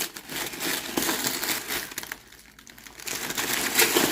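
Packaging crinkling and rustling as a parcel is opened by hand, in a run of irregular crackles that eases off in the middle and picks up again near the end.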